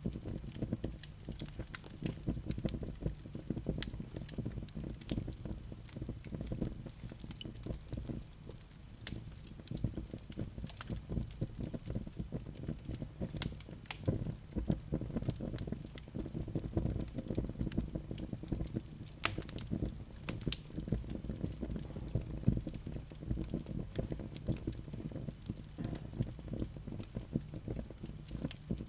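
Wood fire burning in a fireplace, crackling continuously with frequent sharp pops over a low steady rumble of the flames.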